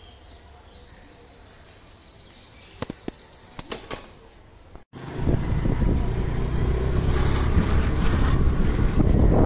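Quiet outdoor background with a few sharp clicks. About five seconds in it cuts to loud wind buffeting the microphone while riding on a motor scooter.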